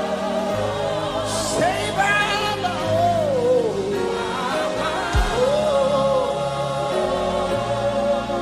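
Live gospel worship music: voices sing long held notes, with one voice gliding up and down through a melody in the middle, over a slow sustained instrumental backing with a changing bass line.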